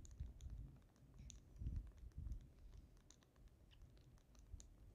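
Faint, irregular clicking of button presses on a handheld game console, with two soft low thumps about two seconds in.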